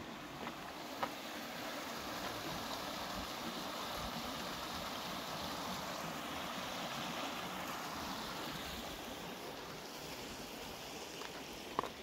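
Steady rush of a small creek's flowing water, swelling slightly in the middle, with a light click about a second in and another near the end.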